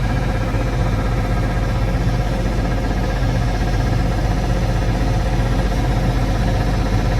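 Tractor engine idling steadily, with a constant low hum.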